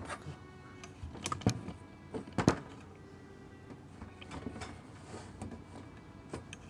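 A handful of knocks and clicks of a camera and its clamp being handled against the bars of a wire pet cage, the sharpest about two and a half seconds in.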